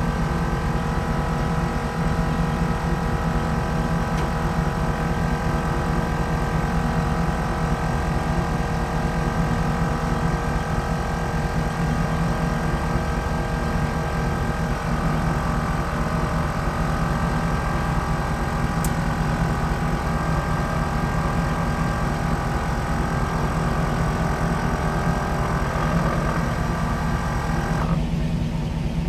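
Hummer H2's electric air-suspension compressor running with a steady hum, inflating the rear air springs to raise the truck. Near the end the higher part of the sound drops away while the low hum goes on.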